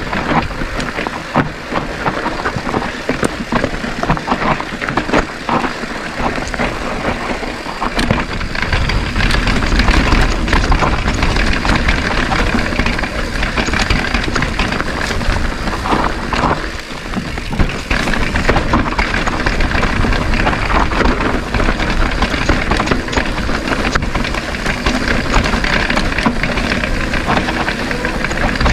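Wind rushing over the camera microphone while a mountain bike rolls down a dirt singletrack, with tyre noise and the bike rattling and knocking over bumps. The wind rumble grows stronger about eight seconds in.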